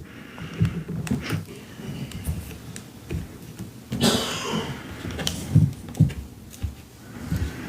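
Paper collage being worked by hand: soft taps and light paper rustles as small pieces of paper are glued down, with a louder, brief rustle about four seconds in.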